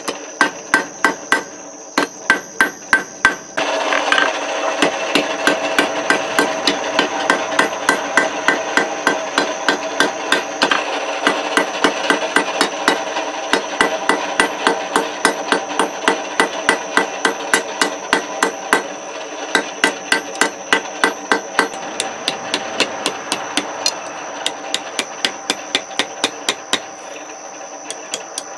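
Blacksmith's hand hammer striking hot steel on an anvil in a steady rhythm of about three blows a second, with the anvil ringing between blows, as the tines of a heart hook are rounded and drawn out. The blows thin out near the end.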